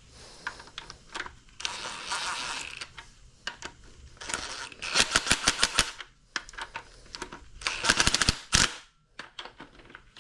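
Ratchet wrench clicking in two quick runs, about five seconds in and again near eight seconds, with scattered knocks and rustling of tools and parts being handled around it.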